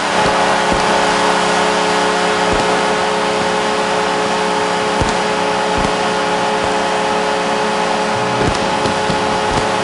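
Arena crowd cheering a home-team goal: a loud, steady roar with several held tones running through it.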